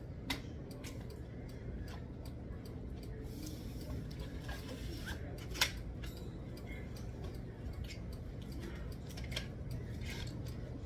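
Scattered light clicks and taps of parts being handled during assembly, with one sharper click a little past halfway.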